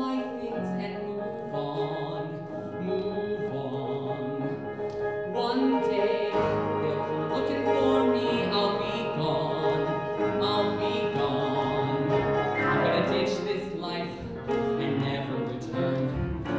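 Live musical-theatre song: a tenor singing held, expressive lines over a piano accompaniment.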